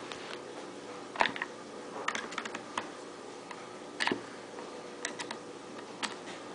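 Screwdriver working the barrel band screw of a Ruger 10/22 rifle: scattered small metal clicks and taps, the loudest about a second in, with a quick run of clicks around two seconds and another knock around four seconds.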